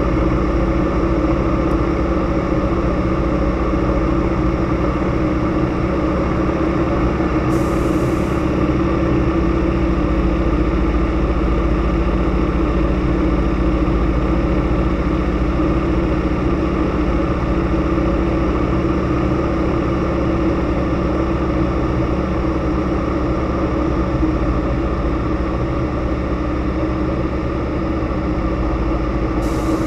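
Zlin Z-37A Čmelák's nine-cylinder Walter M462 radial engine and propeller running steadily in flight, heard from inside the cockpit.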